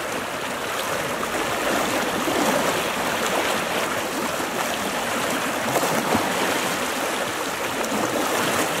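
Fast-flowing floodwater rushing through a channel, a steady, unbroken rush of turbulent water with standing waves.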